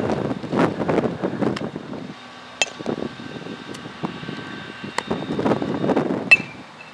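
Gusts of wind buffeting the microphone, with several sharp cracks of a baseball being hit and fielded. The sharpest crack, about six seconds in, has a short metallic ring.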